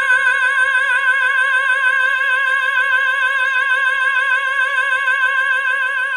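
Operatic singer holding one long, high 'ah' note with an even vibrato.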